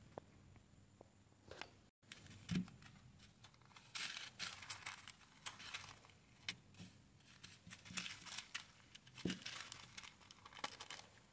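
Small thin plastic zip-lock bags of diamond-painting drills crinkling and rustling as they are handled, starting about two seconds in, with a couple of soft thumps.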